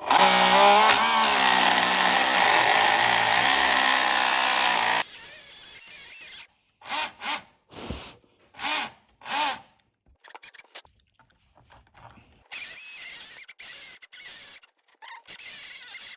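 Carrera 1/32 slot car motor spinning a plastic wheel while a utility knife blade is held against it to machine the wheel true, a noisy scraping whine. It cuts off about five seconds in, comes back as four short bursts, and runs steadily again near the end.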